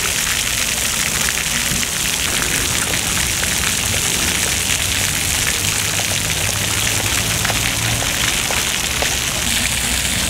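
Fountain water jets spraying up and splashing back down onto a wet stone-paved basin: a steady hiss of falling water, full of many small splashes.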